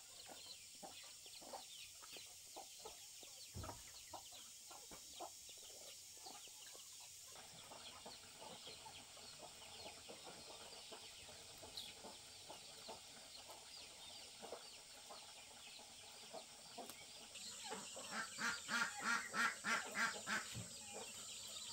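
Chickens clucking in scattered short calls, then a quick run of about seven loud clucks near the end, about three a second.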